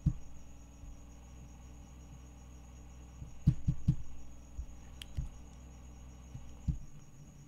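Quiet room background with a steady low hum and a faint high whine, broken by a few soft low thumps: three in quick succession about halfway through and single ones later.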